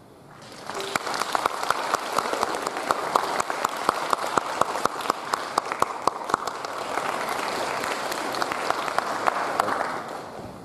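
Audience applauding, a dense patter of many hands that swells in quickly about half a second in, holds steady and tapers off near the end.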